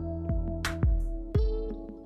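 Instrumental background music with a steady beat: sustained melodic tones over regular low drum thumps and a sharp higher hit about every second and a half.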